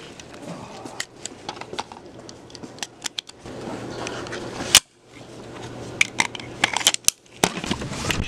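Camera handling noise: a scatter of clicks and knocks over a faint low hum, with one loud thump a little before five seconds in.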